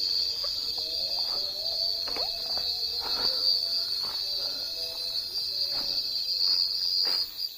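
A steady high-pitched hum ("dengungan") that holds one pitch throughout, with faint scattered knocks and murmurs beneath it.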